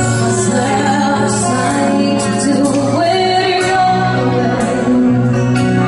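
A band playing a song with a lead singer, sustained bass notes underneath and cymbal strikes about once a second.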